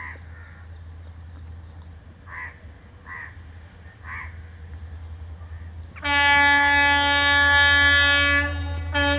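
Crows cawing a few times over a low steady rumble, then about six seconds in the approaching WDP4D diesel locomotive sounds its horn in one long blast of about two and a half seconds, followed by a short toot near the end.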